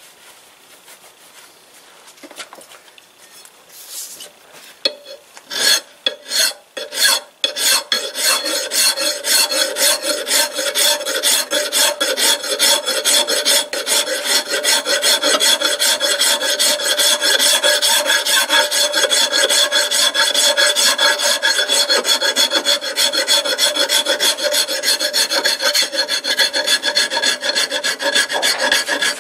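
Metal rasping against work spinning in a 1946 Logan Model 200 lathe. A few knocks come about six seconds in, then a loud, steady, fast-textured rasp with a metallic ring sets in and keeps going.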